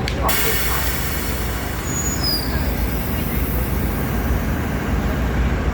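Passenger train's air brakes hissing loudly, starting suddenly, with a few brief high squeals about two seconds in, over the low rumble of the train standing at or pulling into the platform.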